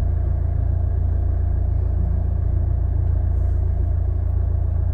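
Chevrolet Malibu moving slowly in reverse, a steady low rumble with no squeak or squeal from the brakes: the reversing brake noise is gone after the brake job.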